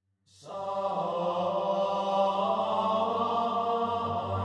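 Background music fading in just after a brief silence: sustained, choir-like chanting over a steady low drone.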